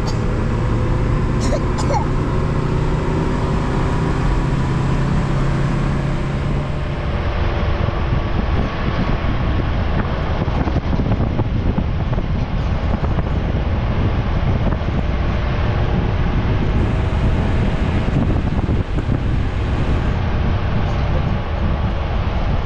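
A motor vehicle driving: a steady engine hum with road noise. The engine tone drifts a little in pitch and is clearest in the first several seconds, then is mostly covered by an even rushing noise.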